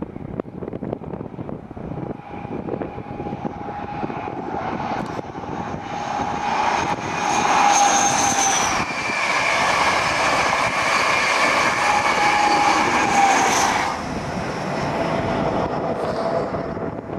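High Speed Train with Class 43 diesel power cars passing at speed: a whine of held tones over wheel and rail noise, building to its loudest as it goes by and easing off near the end, with a slight drop in pitch as it passes.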